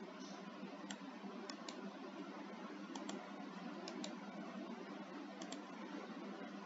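Faint clicks of a computer mouse and keyboard, about nine of them, several in quick pairs, over a steady low hum of background noise.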